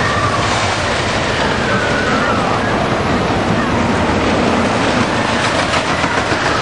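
Texas Cyclone wooden roller coaster train running along its track: a loud, steady rumbling roar with faint wavering high tones over it.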